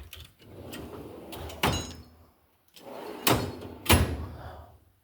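Toolbox drawer rolled along its slides and slammed shut several times, each run ending in a sharp bang, with three bangs in all.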